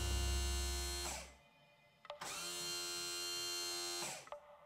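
Mercruiser Alpha 1 power trim pump motor running as the outdrive is trimmed down: a steady electric whine that cuts off about a second in, starts again about two seconds in, and stops near the end, so the down button is pressed in two stretches.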